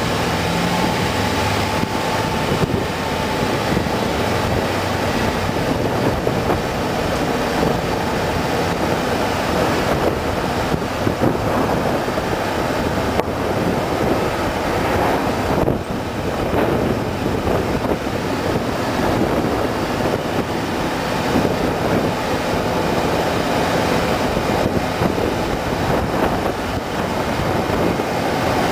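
Steady engine and road noise from a vehicle driving slowly along a street, an even rumble with no distinct events.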